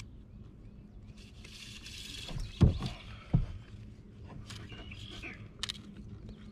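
Handling noise of a northern pike held on a lip gripper in a kayak: a brief hiss, then two dull thumps less than a second apart, with a few faint short bird chirps.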